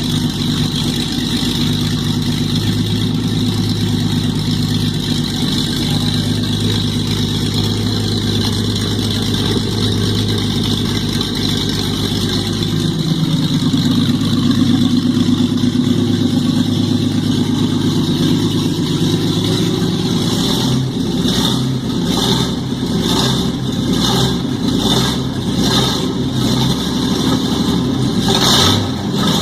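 Tornado straight-six engine with four main bearings, running steadily. It speeds up about halfway through and holds the higher speed. Near the end the running turns into a rhythmic pulsing, roughly once a second.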